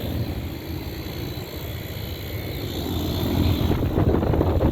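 Goodman central air conditioner condenser unit running just after starting up: a steady low hum from its fan, growing louder over the last second or so.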